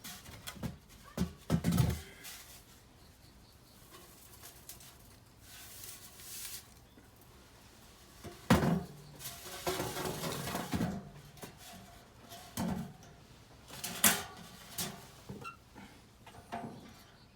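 Irregular knocks, clatter and scraping of things being handled. The loudest hits come about two seconds in, at about eight and a half seconds and at about fourteen seconds.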